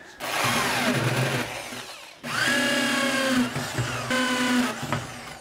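Corded power drill with a hole saw cutting through plywood. It runs in two stretches, with a brief stop between them, and winds down near the end.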